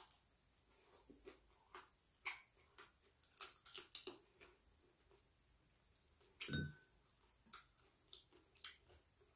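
Faint, scattered mouth clicks and lip smacks of someone chewing grilled conger eel held in the hands and picking the meat off the head bones, with one louder short thump about six and a half seconds in.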